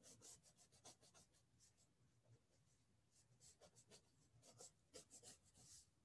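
Faint scratching of a colored pencil sketching on paper in quick, light strokes, with a pause of about a second partway through.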